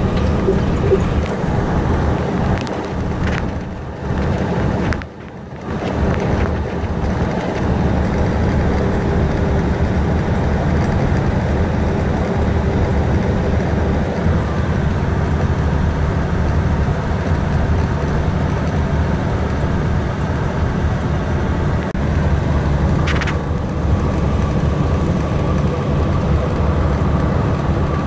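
Western Star 4800 truck's diesel engine idling, heard from inside the cab as a steady low drone. The sound dips briefly about five seconds in.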